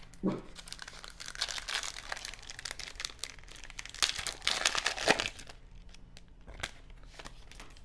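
Foil trading-card pack wrapper being torn open and crinkled in the hands, a dense run of crackling that is loudest a little past the middle and dies down for the last couple of seconds.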